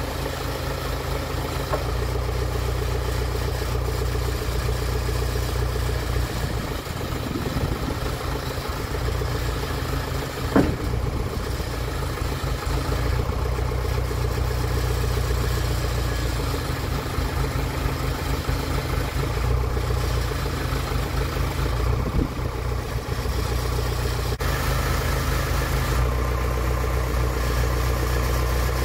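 A loader tractor's engine running steadily while working its loader hydraulics to lift a backhoe's boom, with one sharp knock about a third of the way in.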